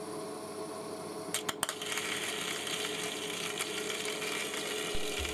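Homemade resistor-capacitor EDM spark-eroding machine burning: a steady electrical hum with a fizzing crackle of sparks in the dielectric fluid, which thickens about two seconds in. There are a few sharp clicks about a second and a half in, and a low thump near the end.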